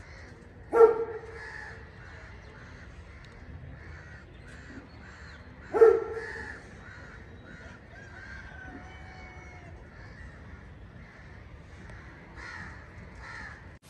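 A crow cawing loudly twice, about five seconds apart, over faint, continual chirping of smaller birds and a low hum of the waking city.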